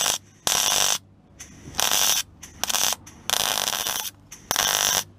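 MIG welding arc crackling in about six short bursts, each well under a second, as heavy tacks are laid to butt-weld a steel repair patch into a car's underside.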